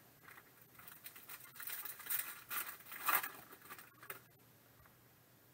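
A foil trading-card pack wrapper crinkling as it is torn open and the cards are slid out, in uneven bursts of rustling that stop about four seconds in.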